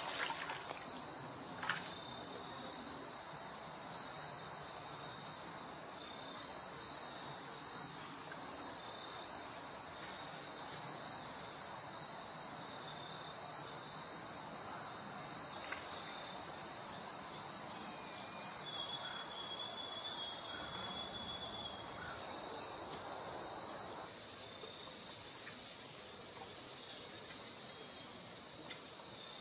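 Steady high-pitched chirring of insects, with a faint even rush beneath it that eases a little near the end. Two short knocks stand out in the first two seconds.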